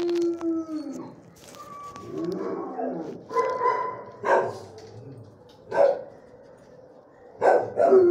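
Dogs in shelter kennels howling and barking. A howl slides down in pitch at the start, single sharp barks come every second or so, and a louder burst of barks and another howl follow near the end.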